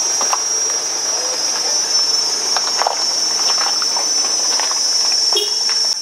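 Insects shrilling in a loud, steady, high-pitched drone, with faint scattered knocks and clatter under it.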